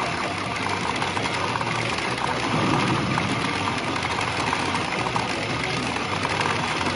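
Pachinko parlor din: a steady, dense clatter of steel balls mixed with machine sound effects, as a P Fever Karakuri Circus pachinko machine pays out during its fever bonus round.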